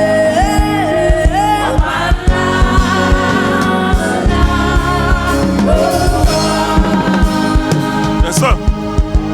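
Gospel choir singing with band accompaniment and a steady drum beat; a wavering vocal line stands out over the first two seconds.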